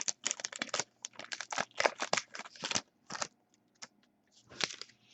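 Trading cards being handled: a quick run of light clicks and rustles for about three seconds, then a few scattered ones.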